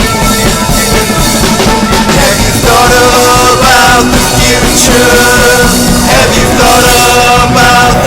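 Loud rock music with drums; about two and a half seconds in, a prominent melodic lead line comes in and the music gets a little louder.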